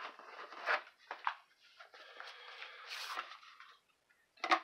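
Soft rustling and handling noise of a pocket knife's packaging being opened off-camera. There are a few light clicks early on, a longer crinkling rustle in the middle, and a sharper click near the end.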